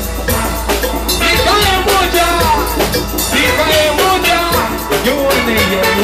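Steel band playing: steel pans carrying the tune over drums and percussion that keep a steady beat, with a voice singing over the band.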